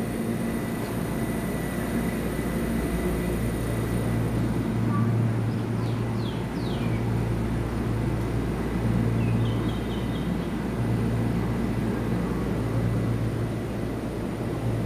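Taiwan Railway EMU3000 electric multiple unit standing at a station platform, its onboard equipment giving a steady low hum that swells and fades slightly. A few short, faint high chirps come through about halfway.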